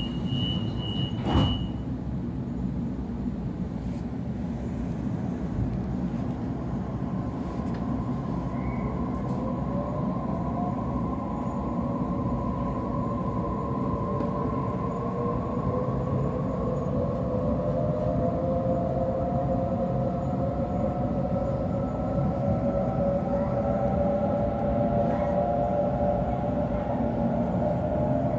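Waratah A set electric train pulling away, its Hitachi IGBT-VVVF traction inverters and motors giving a whine that climbs slowly in pitch over a steady low rumble as the train gathers speed. A steady high beep stops about two seconds in, and a single thump comes about a second and a half in.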